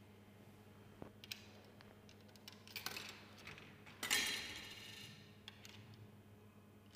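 Coins clicking and clattering into a Cortina vending machine's coin mechanism: a few light clicks, a jingle about three seconds in, then a louder metallic clatter just after four seconds that rings briefly. The coins are swallowed without being credited; the display stays at 0.00.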